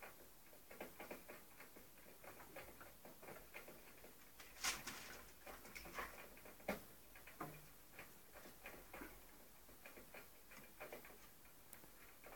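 Faint, irregular light ticks and taps of a springer spaniel puppy and ferrets scampering at play, with a couple of sharper knocks midway.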